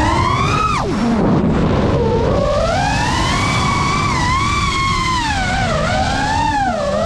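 FPV quadcopter's electric motors whining, the pitch sweeping up and down with the throttle: a rise, then a sudden drop about a second in, then climbing and swelling again through the flying.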